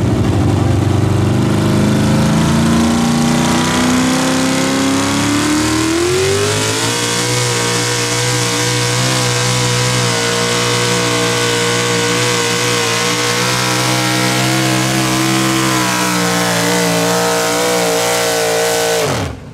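A hot rod pulling tractor's engine at full throttle under load during a pull. The revs climb over the first several seconds, then hold high and steady, and drop sharply just before the end.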